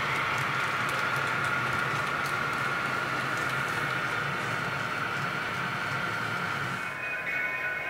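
A long model freight train of autorack cars rolling past on the layout: a steady rumble of wheels on track with a high whine and light clicking. About seven seconds in, a set of higher steady tones comes in.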